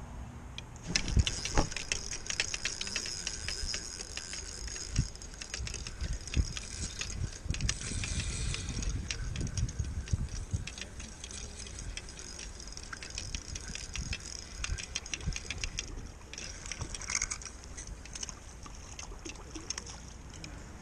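Pflueger spinning reel being cranked to retrieve line: a fast, even clicking whir that starts about a second in with a couple of sharp knocks, stops briefly, and has a last burst near the end. Rustling and knocking of gloved hands on the rod and reel come with it.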